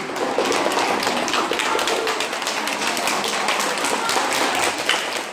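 Audience of schoolchildren and teachers applauding: many hands clapping in a dense, uneven stream of claps.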